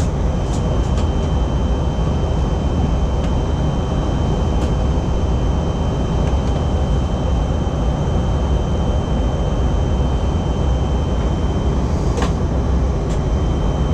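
Steady rumble of engine and airflow noise inside an airliner cabin during the descent, with a faint steady high whine and a light click about twelve seconds in.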